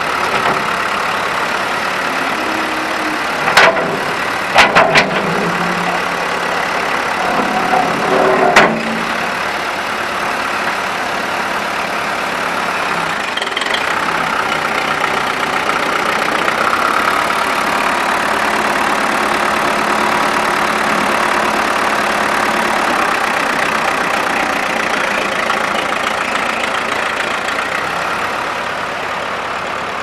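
Case backhoe's four-cylinder diesel engine running steadily. Sharp metallic clanks sound near four seconds, as a quick triple about five seconds in, and again near nine seconds, and the engine note shifts a little in between.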